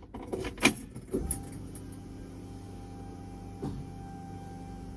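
Keys jangling at the ignition, then the 1965 Mustang's 289 V8 starts about a second in and idles steadily on its first run after an oil change.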